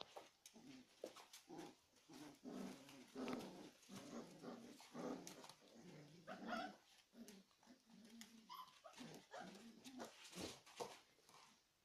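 Puppies play-growling in many short, irregular bursts while tugging at a rope toy, with a couple of higher-pitched cries about midway and light clicks scattered through.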